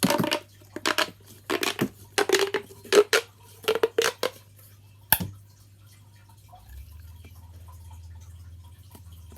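Plastic pop tube being stretched and squeezed: a run of quick crackling pops over the first few seconds, then one sharp snap about five seconds in.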